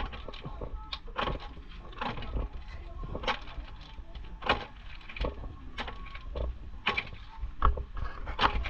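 Irregular hard clicks and knocks, about one or two a second, of shells being handled in a metal basin, over a low outdoor rumble.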